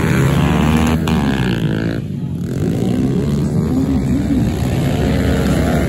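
Several pit bikes racing, their small single-cylinder four-stroke engines overlapping as they rev up and down through the gears. About two seconds in the engines briefly back off, then pick up again.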